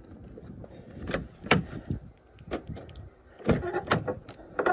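A run of clicks and knocks as a Peugeot 207's driver's door is unlatched and pulled open, the busiest stretch coming in the last second or so. Its hinges are dry and want lubricating.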